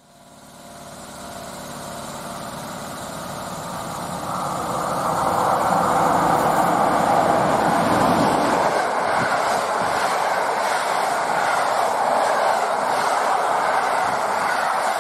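EP09 electric locomotive and PKP Intercity coaches passing through the station on the rails. The noise swells from faint as the train approaches, loudest after about five seconds, then holds as a steady loud rumble of wheels on rails while the coaches go by.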